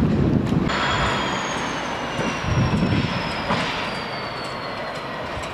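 A loud low train rumble breaks off under a second in, giving way to a Freightliner Class 59 diesel locomotive, with its two-stroke EMD V16 engine, rolling slowly past. Under its steady rumble a thin high whine slowly falls in pitch over about four seconds.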